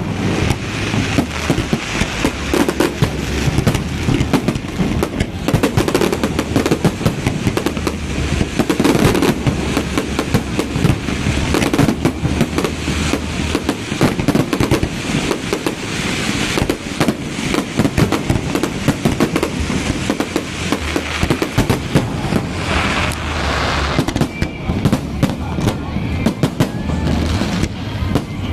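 Fireworks display in full barrage: shells bursting one after another in a rapid, unbroken string of bangs and crackles.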